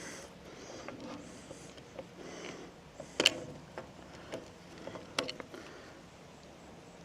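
A few sharp clicks and knocks from hand tools and chainsaw parts being handled while the bar and chain are being swapped. The loudest knock comes about three seconds in, with smaller ones about five seconds in.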